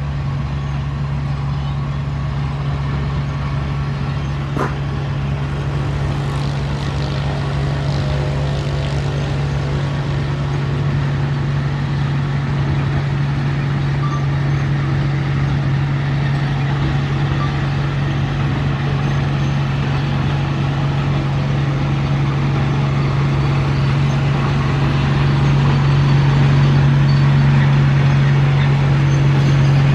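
Komatsu D31P bulldozer's diesel engine running steadily, a little louder from about 25 seconds in, with a single sharp click about four and a half seconds in.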